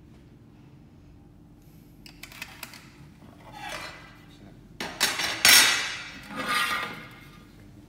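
Aluminum shelf profiles and small metal parts clattering and scraping on a hard benchtop: a few light clicks about two seconds in, then a sudden louder run of scrapes and knocks about five seconds in as a long aluminum profile is shifted and lifted, fading out near the end.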